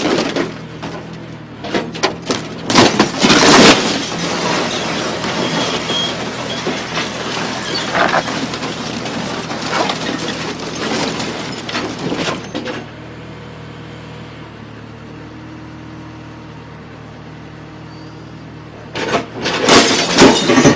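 John Deere 410 backhoe's engine running steadily while a wooden building is broken up, with loud cracking and crashing of boards and debris through the first twelve seconds and again near the end. In between, only the steady engine is heard.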